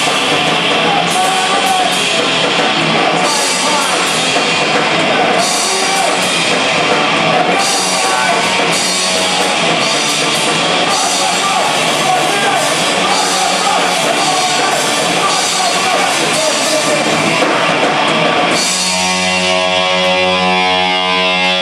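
Live rock band playing loud: distorted electric guitars and a drum kit with cymbal crashes. Near the end the drums drop out and one held guitar chord rings on.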